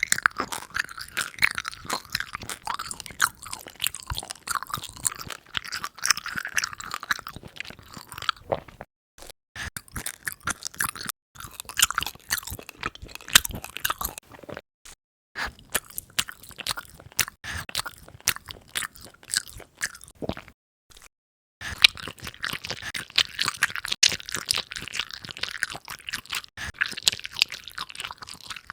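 Close-miked mukbang eating sounds: crunchy, wet chewing and biting of seafood in four stretches, each broken off by a brief silence.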